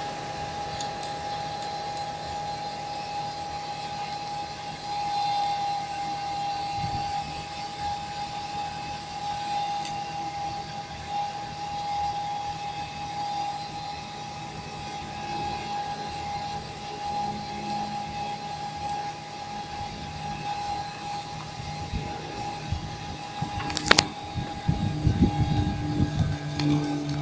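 Steady aircraft cockpit noise: a continuous hum and hiss with a steady high whine throughout. A sharp click about 24 seconds in, and a few knocks near the end.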